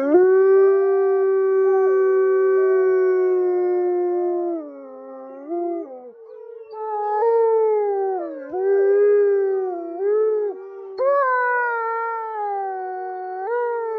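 Dog howling: one long, steady howl for about four and a half seconds, then a run of shorter howls whose pitch slides up and down, with a fresh, louder howl about eleven seconds in.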